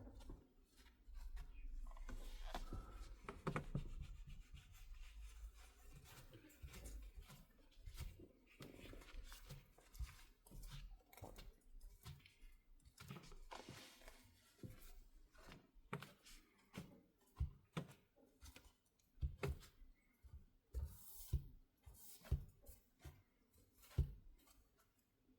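Faint rubbing and scraping on the tablet's frame as old adhesive is cleaned off, with many scattered light clicks and taps of small tools and parts. The rubbing is densest in the first few seconds, then gives way to sparse clicks.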